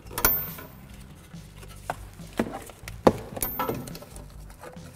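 Scattered light clicks and knocks of a bungee cord's metal hooks and the brake caliper being handled as the caliper is hung from the front coil spring. The loudest click comes about three seconds in.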